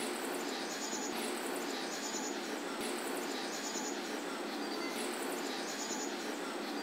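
A 12 V electric scissor jack's motor running steadily as the jack extends and lifts the car.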